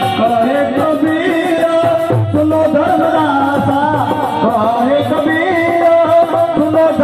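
A man singing a devotional song (bhajan) with a dholak drumming along.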